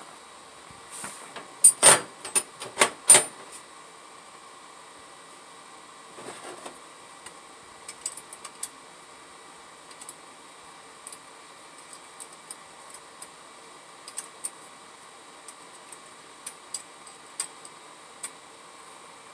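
Hand tools and small metal parts being handled: a quick cluster of sharp knocks and clinks about two seconds in, then scattered light clicks over a steady background hum.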